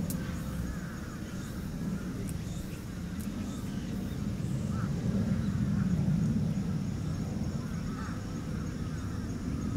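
Shiba Inu puppies nursing, giving short faint squeaks and grunts over a steady low rumble.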